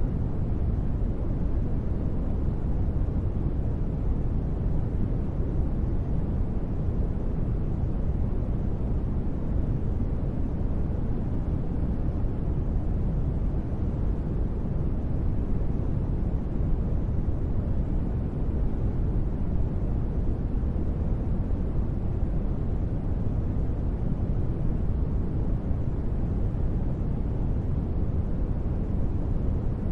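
Steady, unchanging ambient noise bed: a deep, even rushing rumble, strongest in the bass and soft in the treble, with no tones or events.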